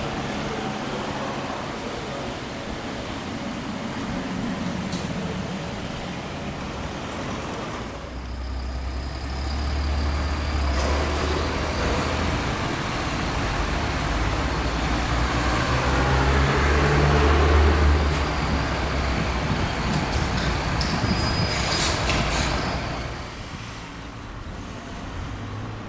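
An electric regional train rolling into the station, then the diesel engine of a city bus running with a deep rumble that grows louder and fades. Short hisses of compressed air from the bus's air brakes come near the end.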